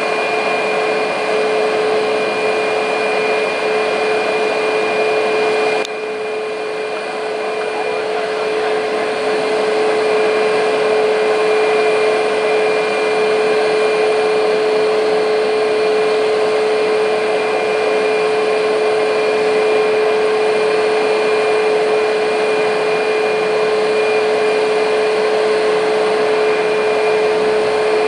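Boeing 737 jet engines running steadily with a high whine over a rushing hiss. About six seconds in the sound dips suddenly, then builds back up over the next few seconds.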